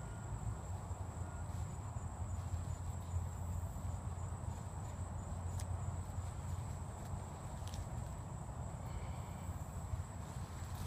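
Soft rustling of a blanket being handled and tucked around a bird, over a steady low rumble, with a thin, steady high-pitched whine and a few faint clicks.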